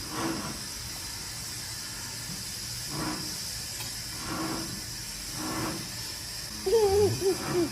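Steady hiss, with a few faint soft sounds and a short high voice near the end, like a small child's.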